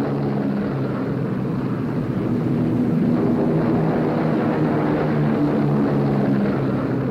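Propeller aircraft with piston engines droning steadily in flight, several engine tones beating together and rising slightly in loudness a couple of seconds in.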